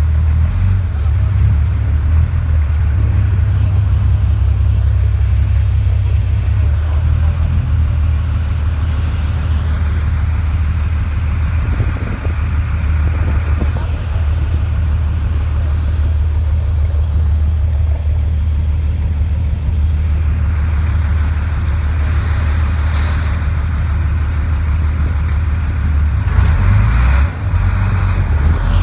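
A river ferry's engine running steadily under way, a deep continuous drone. Its note shifts near the end as the boat comes in toward the pier.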